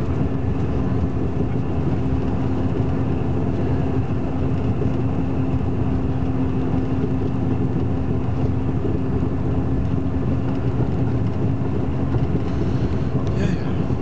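Steady engine and road noise heard inside a moving bus: a low, even rumble with a constant hum running through it.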